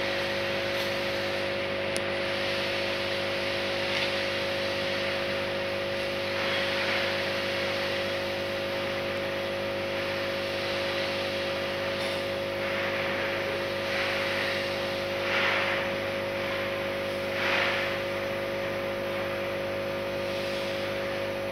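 Five-gas exhaust analyzer's internal sampling pump running with a steady hum of several fixed tones while the analyzer warms up and zeroes. A few brief swells of hiss rise over it in the second half.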